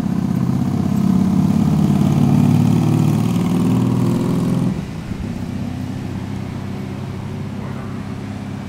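Diesel engine of a Rosenbauer/Spartan Gladiator fire pumper running loud and steady, then dropping abruptly to a lower idle about five seconds in.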